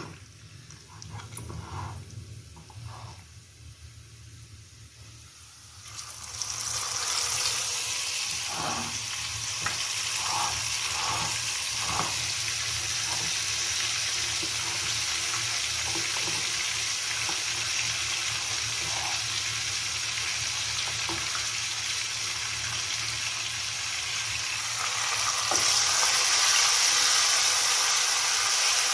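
Marinated beef being added to hot oil with fried onions and whole spices, with a few faint spatula scrapes at first. About six seconds in, a steady sizzle of frying starts suddenly and keeps going. It grows louder again near the end.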